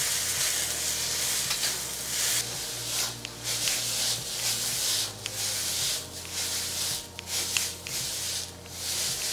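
Bean sprouts and green onions sizzling in a hot carbon steel wok while a metal spatula stirs and tosses them, scraping the wok. The sizzle rises and falls with each stroke, with a few sharp clicks of spatula on metal.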